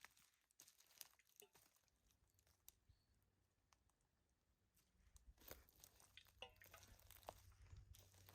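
Near silence broken by faint scattered clicks and crunching crackles, with a low hum coming in about five seconds in.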